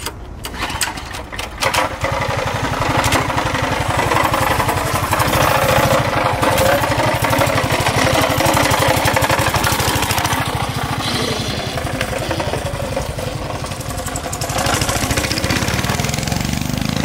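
Small single-cylinder engine on a homemade mini bike: a few irregular knocks and sputters, then from about two seconds in it runs steadily and loudly as the bike is ridden.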